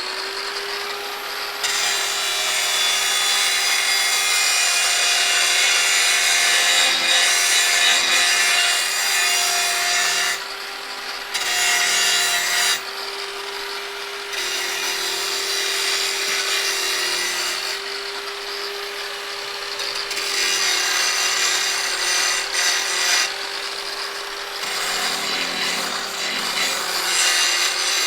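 Angle grinder running at full speed with a steady whine. Its disc bites into material in several long passes of a few seconds each, with short gaps where it spins free.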